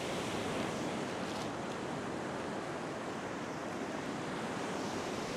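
Ocean surf: small waves breaking and washing up the sand, a steady even rush.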